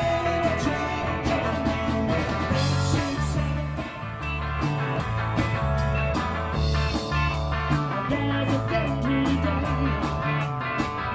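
Live rock band playing, guitar over a steady beat.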